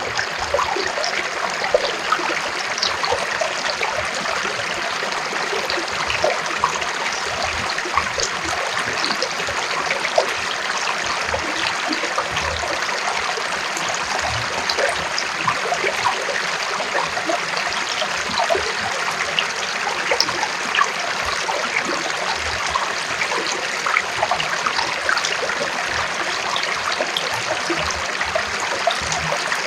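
Stream water running over rocks: a steady rush with many small splashes and gurgles.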